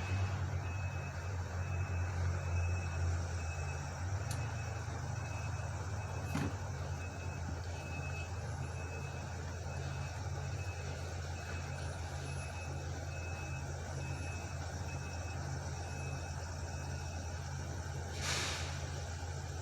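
Heavy debris truck's engine running steadily while its reversing alarm beeps about once a second. A sharp knock comes about six seconds in, and a short hiss near the end.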